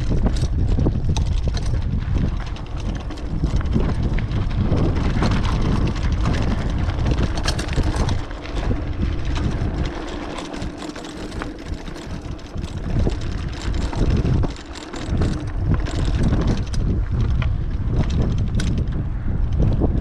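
Strong wind buffeting the microphone while riding a bicycle, in uneven gusts that dip briefly about ten and fifteen seconds in, with scattered clicks and rattles from the bike.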